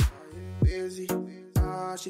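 Background music with a beat: deep falling bass-drum hits, three of them, under a pitched melody.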